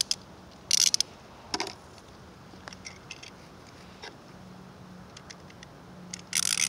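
Beyblade spinning tops and plastic launchers being handled and clicked together as the tops are loaded, in short bursts of clicking and rattling. A few faint ticks come in between, and a longer burst near the end.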